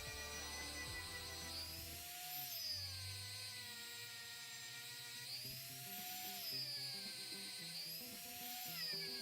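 Background music with a sweeping tone that rises and falls about every two seconds.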